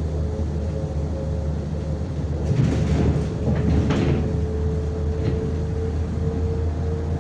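Cabin sound of a moving MAZ-105 articulated city bus: a steady engine drone with a constant whine. About two and a half to four seconds in there is a spell of rattling and knocking from the body.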